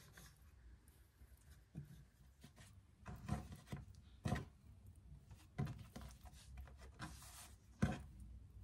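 Hands twisting a soft, nut-filled brioche dough rope on a floured wooden board: faint rubbing and handling, with a few soft knocks as the dough is lifted and set down on the wood.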